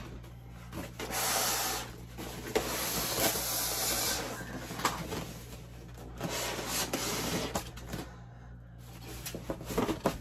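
Styrofoam packing pieces being handled and pulled apart, rubbing and scraping, in several stretches of a second or two with a few light knocks between.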